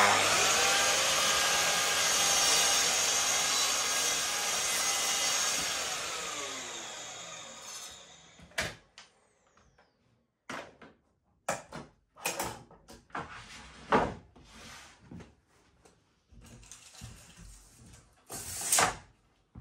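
Festool Kapex KS 60 sliding compound mitre saw starting up and crosscutting a hardwood board, its motor running steadily for about six seconds, then winding down over a few seconds. Afterwards, scattered knocks and clatters as the board is handled on the saw bench.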